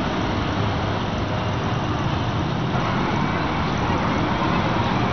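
Steady hum of city traffic noise.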